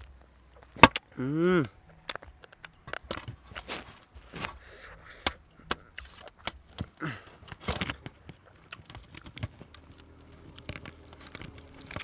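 Close-up eating sounds of a whole roast duck torn apart by hand and bitten: crisp skin and meat tearing and cracking, with wet chewing, in irregular clicks and snaps. A brief hummed 'mmm' rises and falls about a second in.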